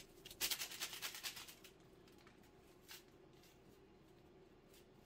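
Crinkly rustling of a paper gelatin packet being handled, a quick run of rustles in the first couple of seconds and one small tick about three seconds in, over a faint steady hum.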